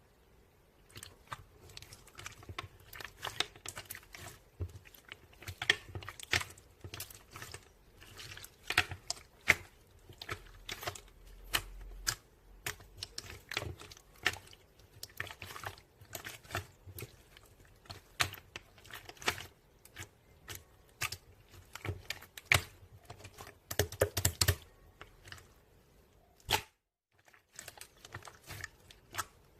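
Crunchy slime being squeezed and pressed by hand, giving a dense run of irregular crackling clicks and pops, with a brief break near the end.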